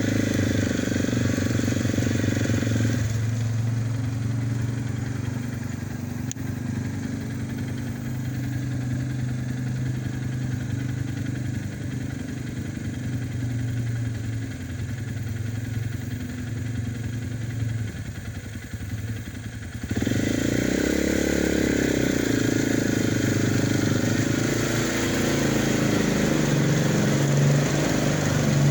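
A vehicle engine running steadily at low revs. About twenty seconds in the sound changes abruptly and gets louder, with the engine's pitch rising and falling as it revs.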